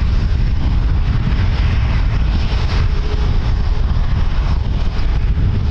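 Strong wind buffeting the microphone: a loud, steady low rumble with a rushing hiss over it.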